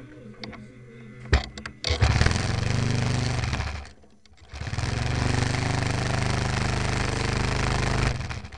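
Small model-airplane engine running in two loud bursts, the first about two seconds long and the second about three and a half, each cutting off. A sharp click comes just before the first burst.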